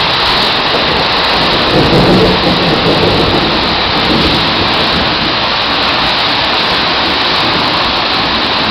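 Heavy rain pouring down steadily during a thunderstorm, with a brief louder low rumble about two seconds in.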